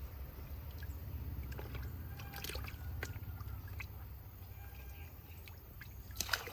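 Faint splashing and trickling of pond water as snakehead fish are let back into the pond, with a louder splash just before the end, over a low steady rumble.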